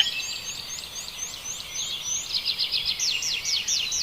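Several small birds chirping together in rapid, overlapping high notes, a run of quick short calls repeating several times a second.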